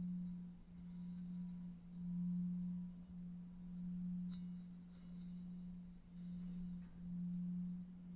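Faint meditation background drone: a single low, steady tone that swells and fades every two seconds or so. A faint click comes about four seconds in.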